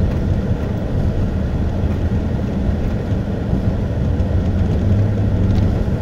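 Pontiac Grand Prix heard from inside the cabin while driving: a steady low engine drone with road and tyre rumble from packed snow.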